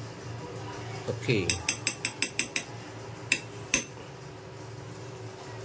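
Kitchen utensils and dishes clinking: a quick run of about seven sharp clinks, then two more a little later, over a steady low hum.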